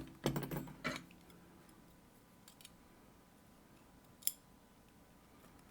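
Small metal lock parts (pins and springs) being handled, giving a few faint ticks and one sharp click about four seconds in.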